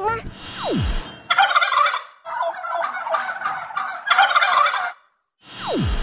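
A turkey gobbling twice, each gobble a rapid warbling call about a second long. A quick falling tone sounds just before the first gobble and again near the end.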